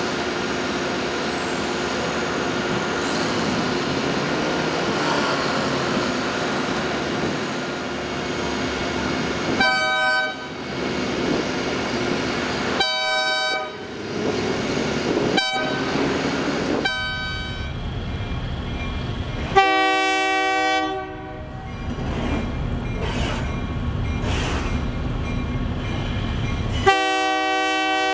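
Diesel freight locomotive running with a steady engine drone, sounding its horn in a series of blasts: short ones about ten and thirteen seconds in, then longer ones near twenty seconds and at the end.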